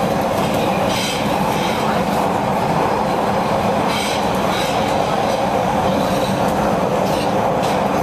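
PATH PA-5 railcar rumbling steadily, with brief high-pitched wheel squeals about a second in, about four seconds in, and near the end.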